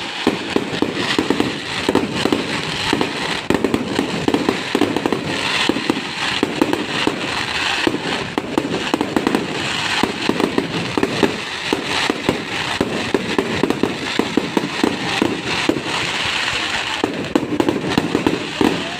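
Fireworks display: a dense, continuous barrage of bangs and crackling with no break.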